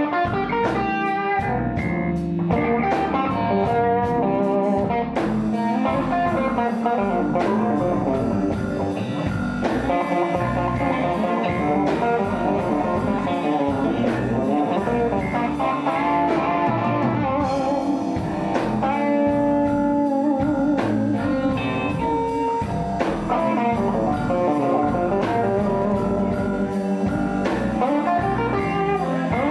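Live electric blues band playing: several electric guitars over a drum kit with a steady beat.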